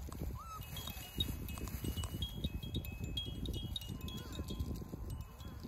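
A string of short, high ringing tones, like chimes, sounding in the middle of the stretch over a low, scuffling rumble.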